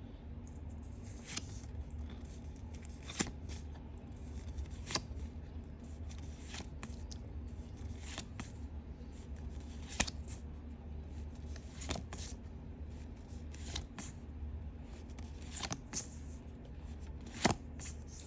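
Pokémon trading cards being slid off the stack one at a time, a short flick or snap of card stock every second or two, over a low steady hum.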